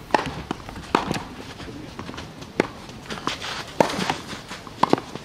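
Tennis balls struck by rackets in a rally on a clay court: a string of sharp pops, the loudest about every second to second and a half, with fainter knocks of bounces and steps between.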